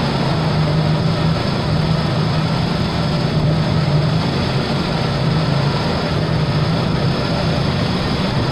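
Ford Bronco II's 2.9 L V6 engine idling steadily but roughly, shaking too much; the mechanic puts the rough running down to too much raw fuel having got into the engine.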